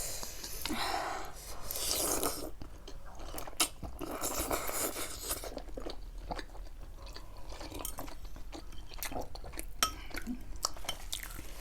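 A person chewing food close to the microphone, with crunchy bites and scattered sharp clicks.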